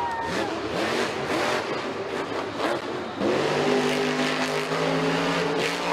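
Grave Digger monster truck's engine revving up and down. About three seconds in it gets louder and holds steady at high revs.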